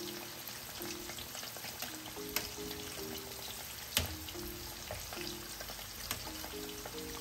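Coated pork ribs deep-frying in hot canola oil: a steady sizzle with scattered crackles and pops, the sharpest about four seconds in. Quiet background music plays underneath.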